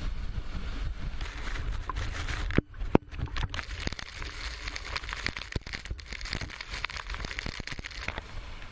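Typhoon wind and driving rain: a low wind rumble buffeting the microphone, two sharp knocks about two and a half and three seconds in, then a steady hiss of rain with crackling.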